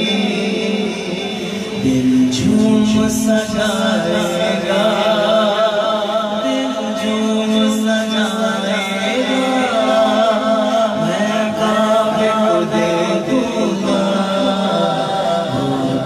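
A man's voice singing a naat (Urdu devotional poem) unaccompanied into a microphone, in long wavering, ornamented phrases over a steady low held drone.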